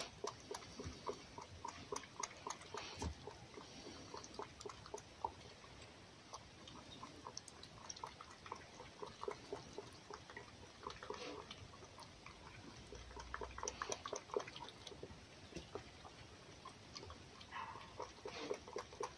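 Fox lapping raw egg from an enamel bowl: a long run of quick, faint wet clicks, a few a second.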